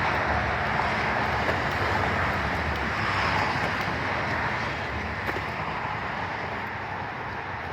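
Interstate highway traffic: a steady rush of passing vehicles that slowly fades.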